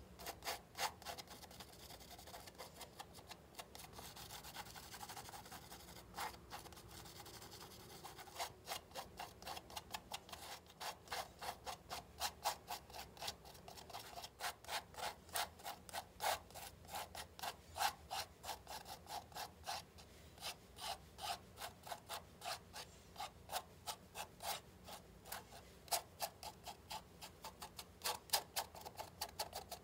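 Metal palette knife scraping and spreading acrylic paint across a stretched cotton canvas in short, repeated strokes, a few a second, coming faster from about eight seconds in.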